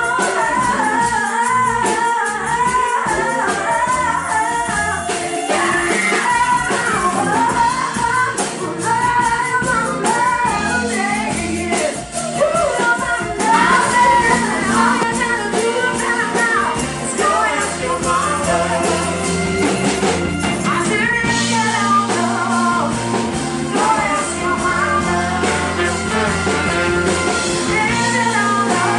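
Soul band playing live, with a lead singer's voice carried over the full band.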